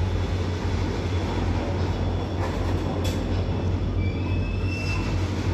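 Goods train of oil tank wagons on the move: a steady rail rumble, with a brief thin wheel squeal about four seconds in.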